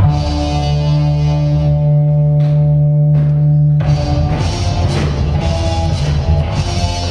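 Music that starts abruptly: held notes over a heavy bass, turning busier with drum hits about four seconds in.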